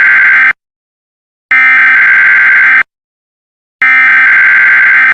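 Emergency Alert System SAME header: loud, harsh, high data-tone bursts, each a little over a second long, with about a second of silence between. The end of one burst is heard first, then two more. These are the coded header that opens an emergency alert broadcast.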